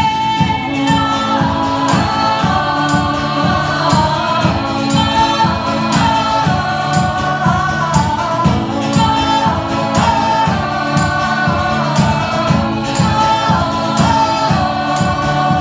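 A live pop-rock song from a female duo playing a passage without lyrics. A steady, driving beat of about two to three strikes a second runs under melodic lines that sound like wordless sung vocals.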